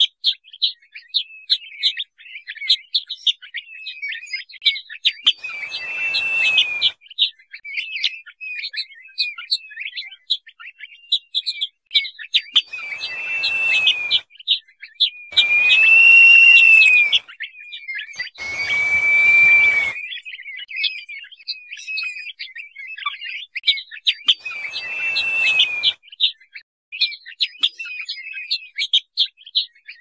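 Crested partridge (Rollulus rouloul) calling: a dense run of quick, high chirps, broken by five longer, arching whistled notes, two of them close together near the middle. Each long whistle has a faint hiss beneath it.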